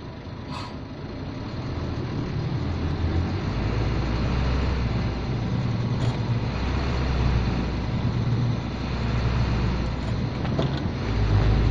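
Hino truck's diesel engine heard from inside the cab. It builds up over the first few seconds and then runs on as a steady, deep rumble, with a brief click about half a second in.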